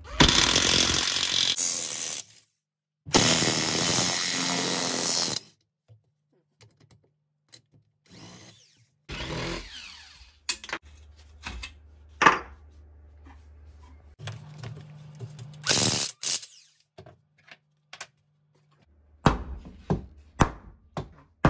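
A power tool runs in two bursts of about two seconds each, then comes a series of sharp knocks and clatters of handled parts and tools.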